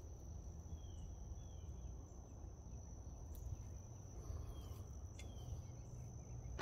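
Steady high-pitched insect drone of an evening insect chorus, with a few faint short falling chirps over it and a low rumble underneath.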